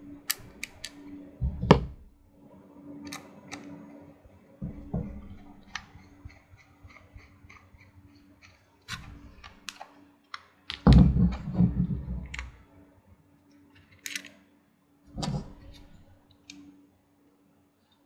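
Hands working hardware into a small metal PC case: scattered light clicks and taps with several dull knocks, the loudest run of knocks about eleven seconds in, as a hard drive's screws go in. A faint steady hum sits underneath.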